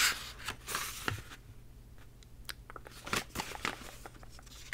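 Paper pages of a paperback book handled and turned close to the microphone: short crisp rustles and small clicking crackles. The brightest rustles come at the start and about a second in, and a cluster of small clicks follows around three seconds in.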